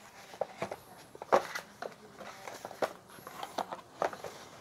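Paper insert cards and a cardboard thermostat box being handled: a string of short, irregular rustles and light taps.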